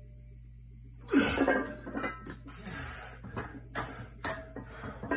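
A man's loud, straining exhale about a second in as he drives up out of a heavy barbell front squat, followed by quick, hard panting gasps between reps of a long set.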